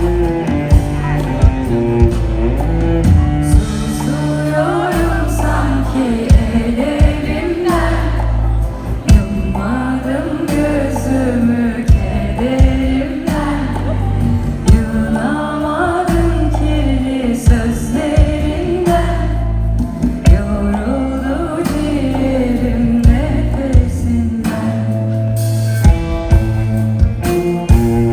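Live concert music: a sung melody over a band with bass and a regular drum beat.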